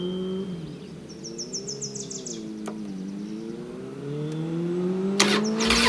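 Motorcycle engine running and being revved: its pitch dips and then climbs steadily, growing louder, with birds chirping briefly. A loud burst of noise breaks in just before the end.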